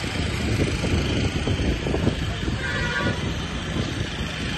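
Large fire burning across the boats: a steady low rumble with continual crackling.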